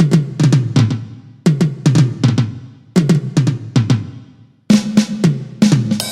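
Millenium MPS-150 electronic drum kit, heard through its sound module, played in short fills of four or five quick hits. Each hit drops in pitch as it fades, and the fill repeats about every second and a half. Near the end the pattern changes to hits with a steady ringing tone and a cymbal-like wash.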